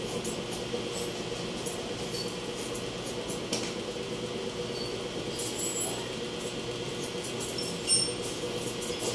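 Barber's scissors snipping hair in light metallic clicks over the steady hum of a fan, with one sharper, louder click near the end.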